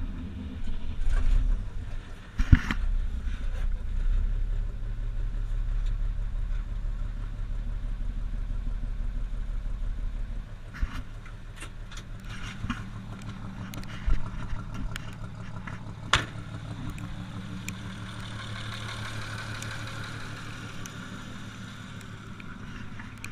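1964 International C1200 pickup's engine on a cold start, catching right away and running steadily. The deep rumble lightens after about ten seconds and the engine runs on more quietly, with a few sharp knocks over it.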